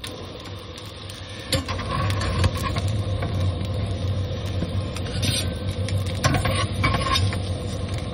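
Grilled cheese sandwiches frying in a pan on a single-burner propane camp stove, with scattered clinks and scrapes of a utensil against the pan as they are lifted out, over a steady low hum.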